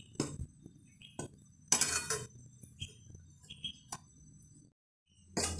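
Stainless steel spatula scraping and clinking against a steel kadhai, stirring dry wheat and urad flour as it roasts. The sound cuts off briefly near the end, and a louder clatter of metal on metal starts just before it closes.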